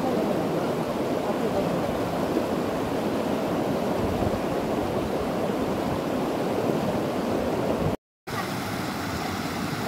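River water rushing over shallow rapids: a steady rush that cuts out briefly about eight seconds in, then resumes slightly quieter.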